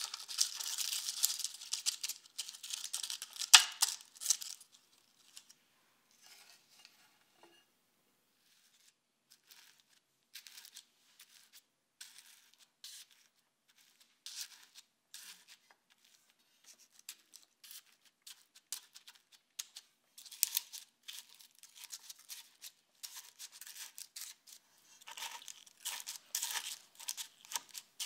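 Buttered biscuit crumbs being scooped into paper cupcake liners and pressed down with a wooden tamper: crumbs crunch and the paper liners crinkle. The first four seconds or so hold dense scraping, followed by sparse soft crackles, and then a run of crisp crunching presses over the last eight seconds.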